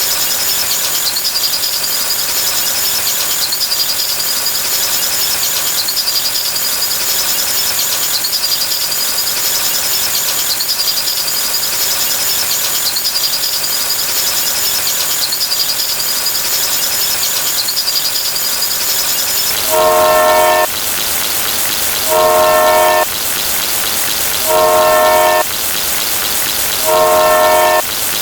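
A train running on the rails, a steady rushing noise with a slow repeating rhythm. About two-thirds of the way through, a train horn starts sounding in blasts about a second long, four times, roughly every two and a half seconds.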